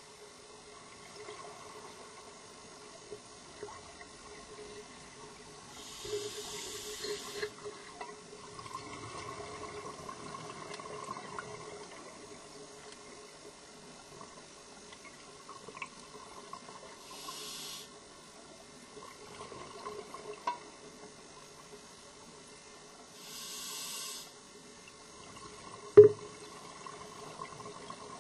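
Scuba diver breathing through a regulator underwater: three hissing breaths several seconds apart over a steady faint hum, and a single sharp knock near the end.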